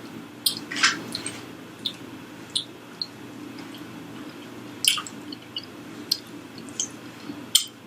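Close-up eating sounds: someone chewing a mouthful of soft black-eyed peas, with wet mouth noises and a scattering of short sharp clicks, over a faint steady low hum.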